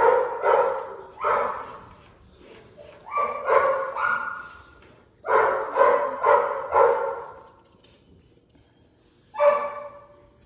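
An adult Airedale terrier, the mother dog shut away from her puppies, barking in quick runs of two to five barks with pauses between.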